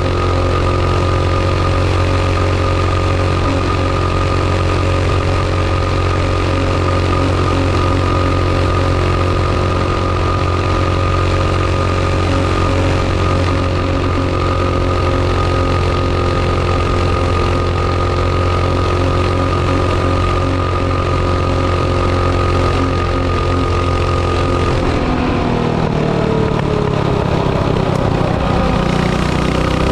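Mini bike's small single-cylinder engine, fitted with a 22 mm carburetor that is still jetted slightly lean, running steadily as the bike is ridden. About 25 seconds in the engine note falls, then it rises again near the end.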